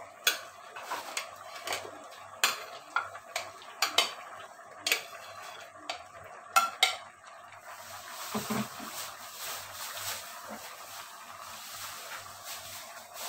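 Metal spoon clinking and scraping against a ceramic plate and a stainless steel pot as cubes of pumpkin are scooped into the pot, about a dozen sharp clinks over the first seven seconds. After that a steady soft hiss of the coconut-milk broth simmering.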